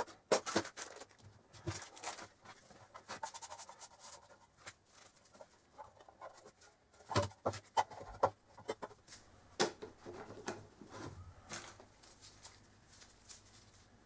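Hands handling a small metal tin and other small items on a tabletop: scattered light clicks, taps and rubbing, with the sharpest knocks about seven seconds in and again near ten seconds in.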